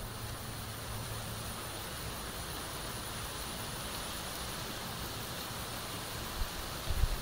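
Steady outdoor ambience: an even hiss with a faint, steady high-pitched drone. A few low thumps come right at the end.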